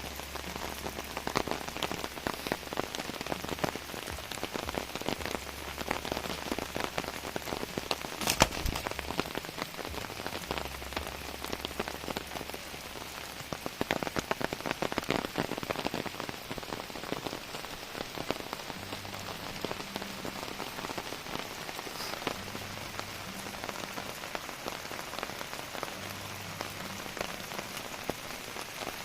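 Heavy rain falling on surfaces: a dense, steady patter of drops, with one louder drip or knock about eight seconds in.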